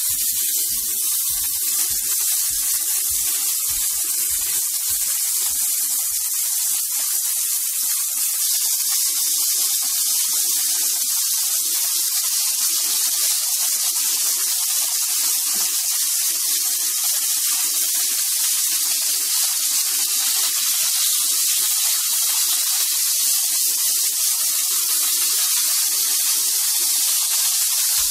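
Marinated beef steak slices frying in oil and sauce in a wok, with a steady, loud sizzle. There are low bumps during the first six seconds or so.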